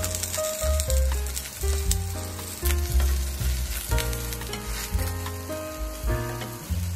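Eggplant wedges sizzling as they fry in oil in a non-stick frying pan, turned with chopsticks. Background music with a steady bass line plays throughout.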